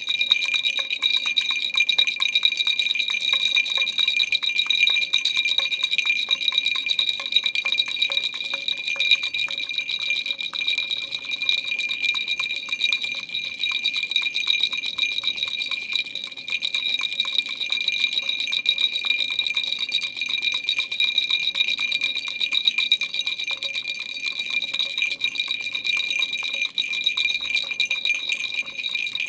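Baby rattle shaken without pause: a dense stream of fast clicks over a steady, high, bell-like ringing.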